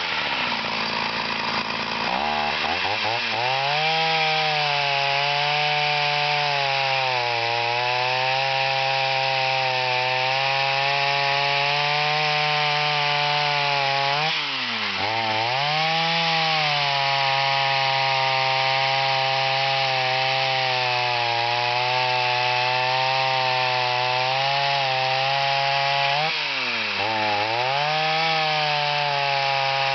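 Old Olympyk 251 Super two-stroke chainsaw running. It is revved up a couple of seconds in and held at high speed. Twice its engine note drops for about a second and climbs back.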